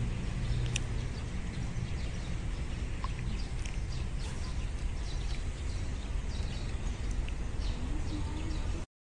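Outdoor ambience: a steady low rumble with scattered short, high bird chirps. The sound cuts off suddenly near the end.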